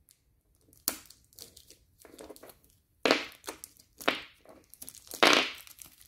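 Stiff plastic battery packaging crackling and tearing in a few sharp bursts as the batteries are worked free. The loudest burst comes near the end.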